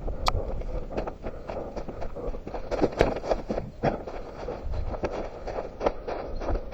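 A runner's footsteps, a quick, irregular series of footfalls on rough ground, heard close up from a head-mounted camera. A single sharp click sounds about a third of a second in.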